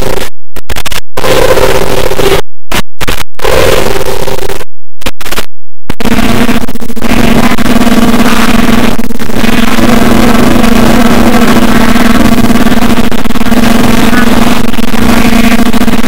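Corrupted digital TV broadcast audio: loud, harsh distorted noise broken by several sudden dropouts in the first six seconds, then a steady loud buzzing drone that lasts until the end, the sign of the signal breaking up during capture.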